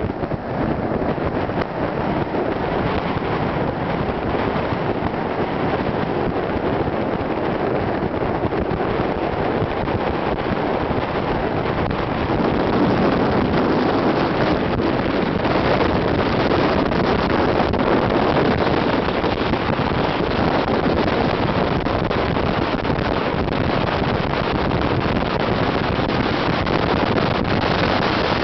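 Steady rushing wind and tyre noise of a moving car, with no engine note: the car is rolling with its engine switched off. The rush grows a little louder about halfway through.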